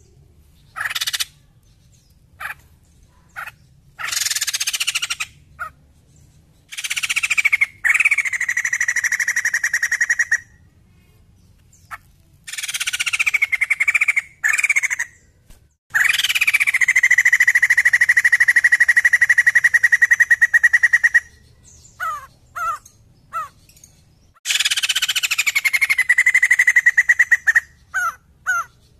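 White-crested laughingthrush calling loudly. Short chirps come between several long calls. Each long call slides down from a high pitch and then holds as a fast rattle for a few seconds, and the longest runs about five seconds near the middle.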